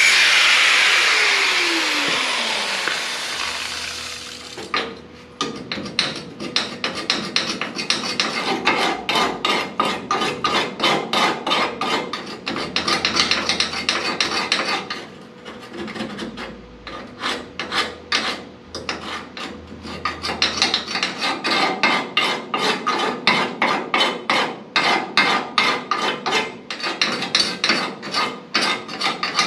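A power tool spinning down over the first few seconds, its pitch falling. Then rapid back-and-forth strokes of a hand tool rasping on metal, about three or four a second, in long runs with a couple of short pauses.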